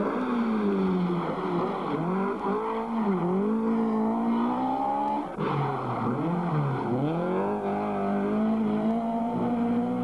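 Rally car engine at high revs, its pitch dropping and climbing several times. The sound changes abruptly about halfway through and then goes on in the same way.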